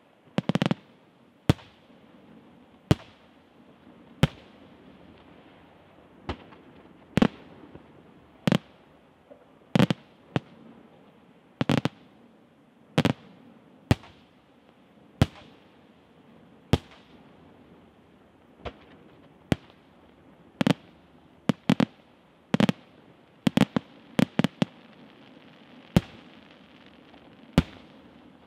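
Aerial firework shells bursting in a steady series of sharp bangs, about one every second, coming in a quicker run a little before the end. A faint hiss lies between the bangs.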